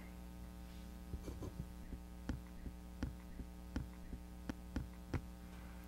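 A run of irregular, light key clicks from the keys of a briefcase radio set being typed on, over a steady electrical hum.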